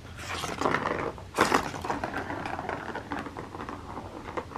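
Plastic ball rolling and rattling around the channel of a Turbo Track cat toy, with a louder knock about a second and a half in.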